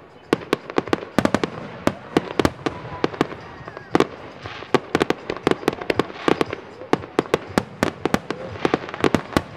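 Aerial fireworks shells bursting in a rapid, irregular series of bangs, several a second, each with a short echo.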